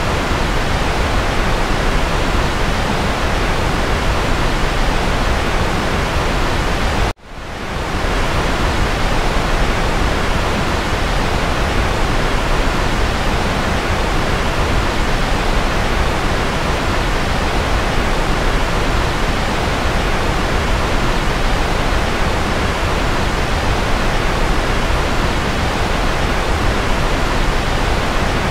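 Steady white-noise hiss, even and without any tone or rhythm. About seven seconds in it cuts out for a moment and fades back up within half a second.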